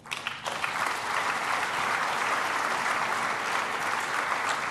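Audience applauding in a large hall: dense, steady clapping that starts right after the speaker's line and carries on without a break.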